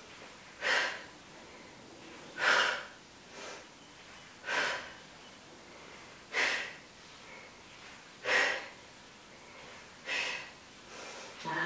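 A woman breathing out hard in rhythm with glute-bridge repetitions: six sharp exhales about two seconds apart, with fainter breaths in between.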